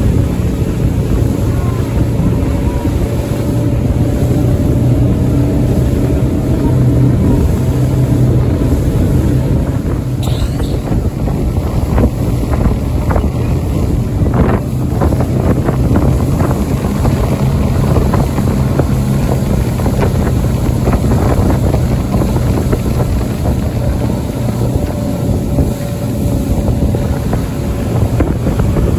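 Rigid inflatable boat's outboard engine running steadily at speed, with wind buffeting the microphone and water rushing past the hull. A few knocks come about halfway through.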